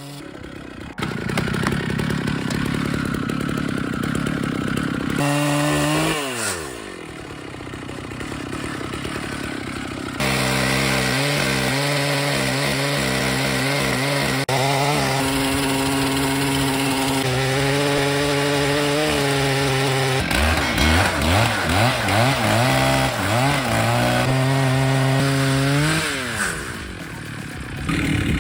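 Large two-stroke chainsaws running at high throttle, the engine note held steady through long stretches of cutting. Twice the pitch falls away as the throttle is released, about six seconds in and near the end. In between it wavers with the load, and the sound changes abruptly several times as one saw gives way to another.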